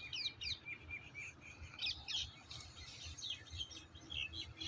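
Small birds chirping: many short, high chirps, some falling in pitch, scattered throughout, over a low steady rumble.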